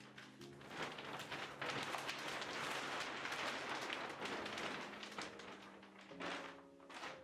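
Panda film, black-and-white polyethylene sheeting, rustling and crinkling loudly as it is pulled and flapped out across the floor; it starts about a second in, dies down near the end and gives one last short crackle.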